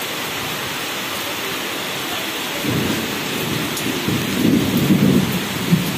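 Steady rain falling, with a low rumble of thunder coming in about three seconds in and swelling toward the end.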